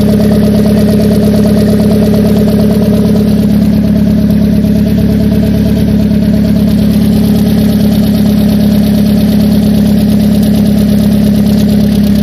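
Mitsubishi 4G93 1.8-litre GDI four-cylinder petrol engine idling steadily, heard close up in the engine bay.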